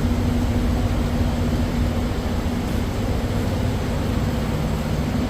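Semi-truck engine running with a steady low drone and hum inside the cab.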